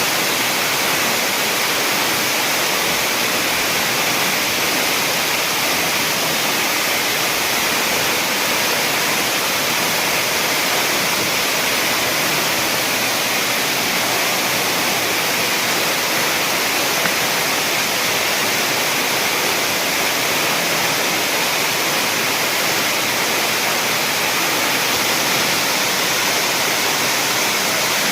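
Waterfall: water falling and rushing in a steady, unbroken roar with a strong hissing top.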